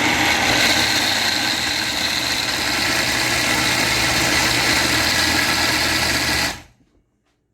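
Electric blender running at a steady speed, chopping pre-soaked black-eyed peas to loosen their skins, then switched off suddenly about six and a half seconds in.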